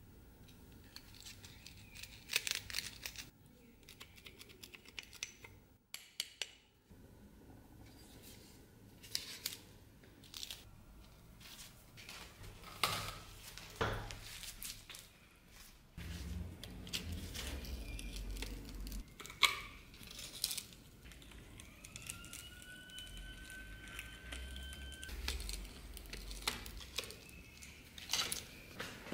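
A rusty axe head being handled and clamped in a steel bench vise: scattered metal clinks, knocks and scraping. A short squeal rises in pitch and then holds about three-quarters of the way through.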